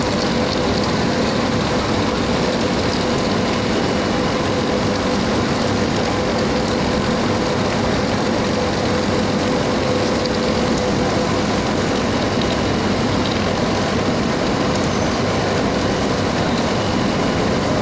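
A 450 kW, 1-ton induction melting furnace running, giving a steady humming tone over a constant industrial din.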